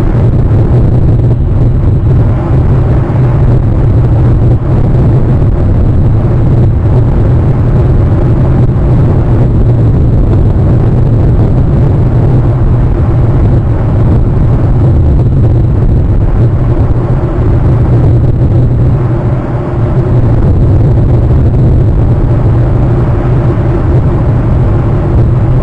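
A loud, steady low rumble with a fainter hiss above it, unbroken apart from a brief slight dip about three-quarters of the way through.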